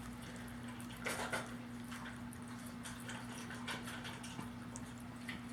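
A Chihuahua eating breakfast from its bowl: faint scattered clicks and crunches of chewing and eating, a small cluster about a second in, over a steady low hum.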